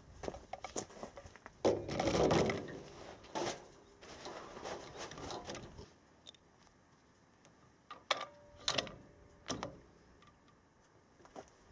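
Handling noise as a rifle is set up on its bipod on a steel checker-plate tray: irregular knocks, clicks and scraping, with a longer rustling stretch about two seconds in and a few sharp knocks about eight to nine and a half seconds in.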